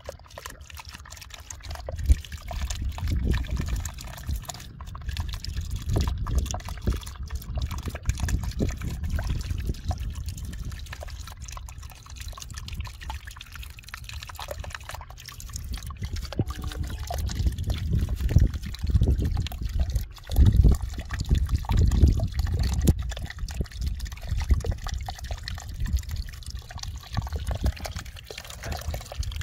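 Muddy water trickling and pouring out between broken bricks into a puddle, steady and splashy, with an uneven low rumble underneath that swells and fades.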